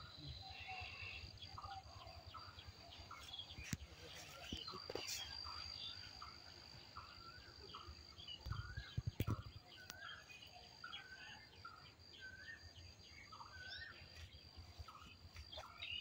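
Birds chirping and calling faintly, many short notes scattered throughout, over a steady high insect drone. A few sharp clicks and a brief low rumble a little over halfway through.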